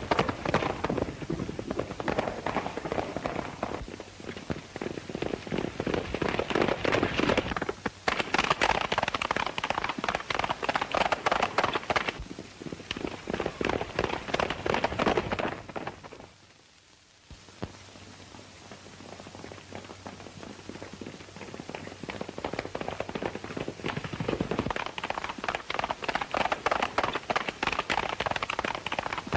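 Horses galloping: a fast, dense clatter of hoofbeats. It drops out for about a second a little past the middle, comes back quieter, and builds to full strength again near the end.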